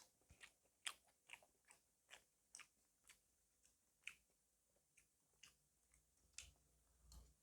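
Close-miked mouth sounds of someone chewing food: short, wet clicks and smacks about twice a second.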